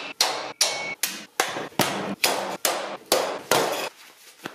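Hammer blows struck at an even pace, about two and a half a second, each with a short ring; they die away near the end.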